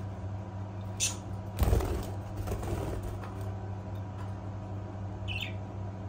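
Budgerigar bathing in a glass dish of cabbage leaves, flapping its wings and rustling the leaves in one loud burst about a second and a half in that trails off over the next second. A short budgie chirp comes near the end.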